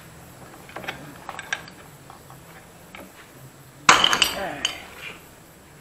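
Steel wrench clinking on a flywheel puller as its bolt is turned against the magneto rotor of a Honda CG motorcycle engine, with one loud, sharp metallic crack and ringing about four seconds in. The crack is typical of the rotor breaking free of the crankshaft taper.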